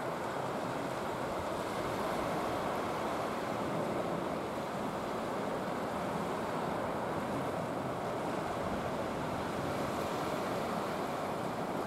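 Steady, even rush of sea surf and wind, with no single wave standing out.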